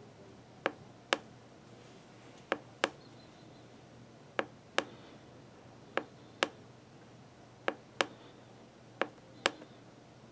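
Front-panel arrow key on a Raptor ultrasonic thickness instrument pressed repeatedly: six pairs of sharp clicks, each a press and release, about one every one and a half seconds, stepping the zero calibration down to read 0.100 in.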